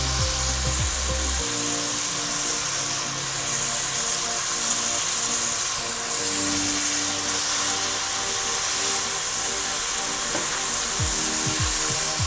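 Chicken breasts sizzling in oil in a stainless steel frying pan, a steady hiss, with background music over it.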